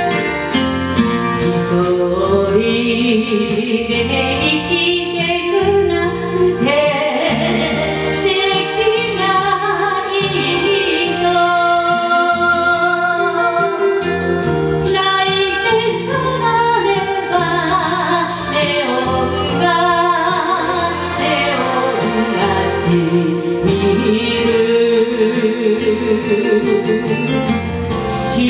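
A woman singing a Japanese enka ballad over a karaoke backing track, her held notes wavering with heavy vibrato.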